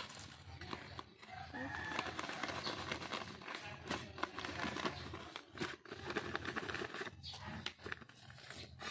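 A small hand trowel scraping and scooping soil into a plastic polybag, with the soft plastic bag rustling and crinkling as the soil is packed in around a coconut seedling.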